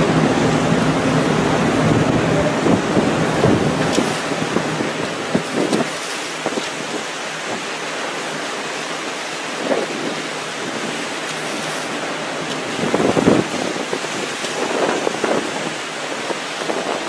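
Strong wind rushing over the microphone over the wash of rough sea below, with a few louder gusts or surges along the way. A low hum fades out in the first few seconds.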